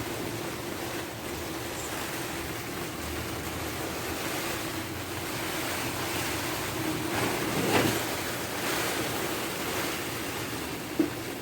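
Steady rushing noise of a storm's wind, swelling once about eight seconds in, with a faint steady hum beneath it and a short knock near the end.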